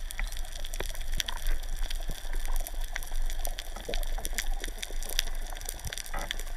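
Underwater ambience on a coral reef heard through a camera housing: a steady scatter of sharp crackling clicks over a low rumble of water moving past the camera.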